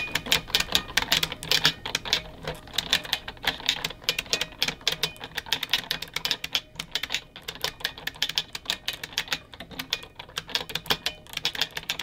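Mechanical computer keyboard being typed on, a fast run of clacking keystrokes with a couple of short pauses, as a search is typed in.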